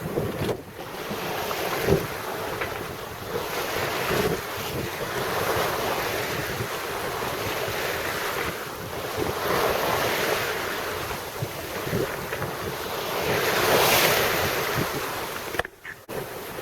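Wind buffeting the microphone and waves rushing along the hull of a small sailboat under sail, with no engine running. The wash swells and eases in surges every few seconds.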